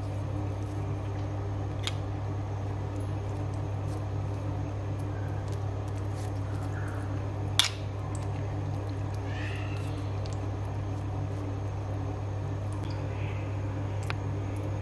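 A metal spoon spreading tomato sauce over pizza dough in a pan, with a few light clicks of the spoon against the dishes, the sharpest about halfway through, over a steady low hum.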